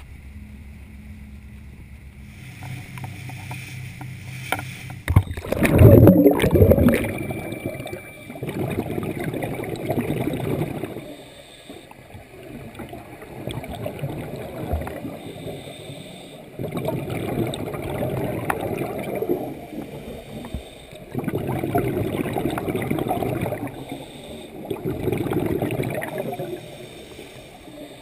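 A motorboat engine hums for the first few seconds, then a loud churning rush of water comes in around five to seven seconds in. After that, underwater, a scuba diver's regulator exhaust bubbles rumble in bursts of two to three seconds, about every four seconds with each exhaled breath.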